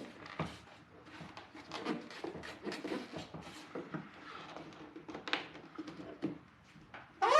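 Small clicks, taps and rustling of hands working the mirror wiring and its rubber grommet into a Volvo 740 door. Right at the end a dog barks once, the loudest sound.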